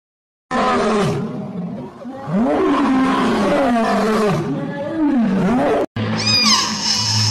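Lion calling in a series of deep, rough calls that rise and fall in pitch, starting about half a second in and stopping sharply near the end. A different, higher call with short falling cries follows right after.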